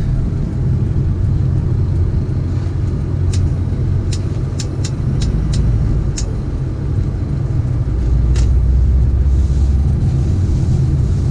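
Steady low engine and road rumble inside the cab of a 2005 Ford F-350 with the 6.0 Power Stroke turbo-diesel V8, driving slowly. A scatter of sharp clicks in the middle, and a louder low rumble for about two seconds near the end.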